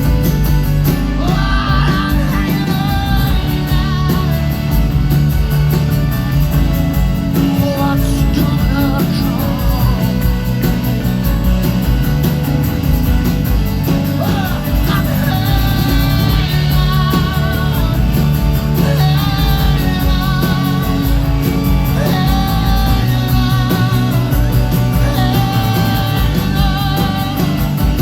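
Live rock band playing a long instrumental passage, with guitar and wordless singing over a steady, heavy bass.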